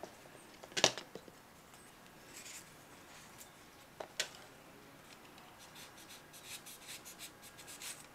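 Light handling of a styrofoam craft snowman on a marble tabletop: a sharp knock about a second in and another around four seconds, then soft scratching and rubbing of the foam with small clicks.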